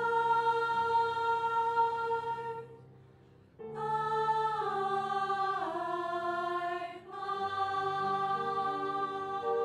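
High school choir singing held chords in harmony, breaking off for under a second about three seconds in, then coming back in and stepping down in pitch.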